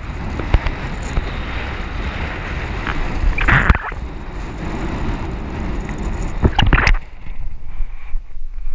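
Wind and water rushing past a kitefoiler's point-of-view camera as the board skims the sea, with two louder rushes of spray about three and a half and six and a half seconds in. After about seven seconds the hiss thins out, leaving a low wind rumble on the microphone.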